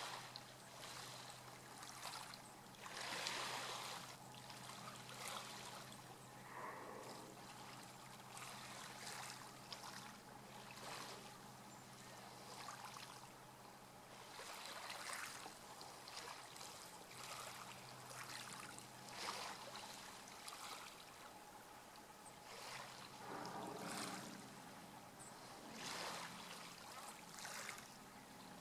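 Small waves lapping at the water's edge, a soft wash every second or two, over a faint steady low hum.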